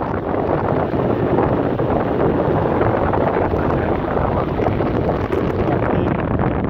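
Wind rushing and buffeting steadily against the microphone, a dense rumbling hiss with no clear engine note.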